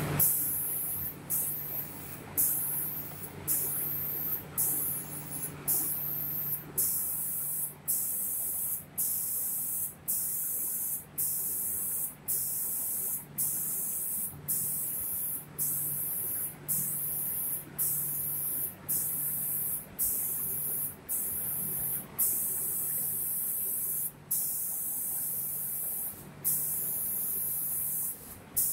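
Automatic spray-painting machine's spray guns hissing in short repeated bursts, about one a second, as they coat a wooden cabinet door, with a low steady hum underneath.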